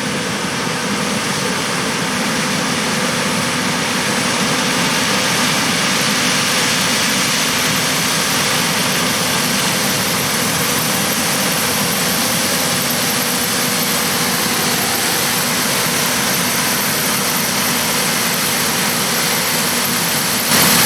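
John Deere S780 combine harvester running steadily while harvesting corn: a constant engine and machinery drone with hiss and a few steady tones, slightly louder after the first few seconds.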